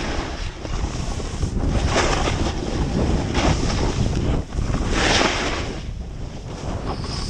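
Wind buffeting the microphone during a fast descent of a steep snow slope, with about three surges of snow scraping under the edges at the turns.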